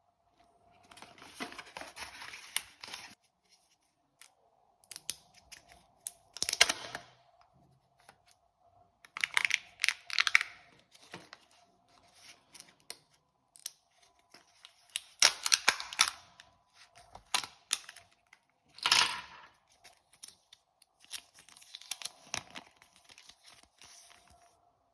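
Kinder Joy egg's wrapper and plastic packaging being torn open and handled: repeated bursts of tearing and crinkling with sharp clicks, coming every few seconds. A faint steady hum runs underneath.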